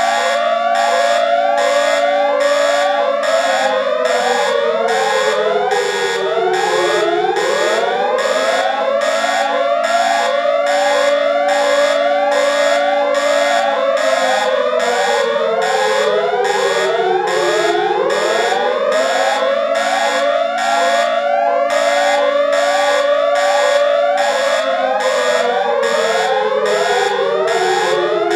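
Electronic emergency alert system (EAS) alarm tone, loud and layered: a siren-like wail holds steady, slides down and jumps back up about every ten seconds, under rapid rising chirps and high pulsing beeps about twice a second.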